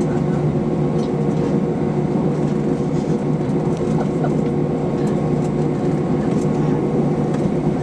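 Steady cabin drone inside an Airbus A321 on the ground after landing: an even hum holding several steady tones, with a few faint clicks and rustles.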